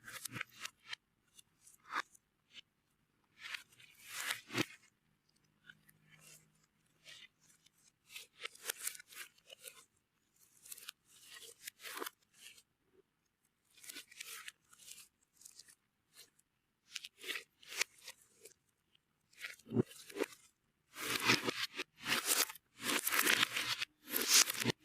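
Slime being mixed with powder, giving irregular crunchy, crackling bursts that grow denser and louder over the last few seconds.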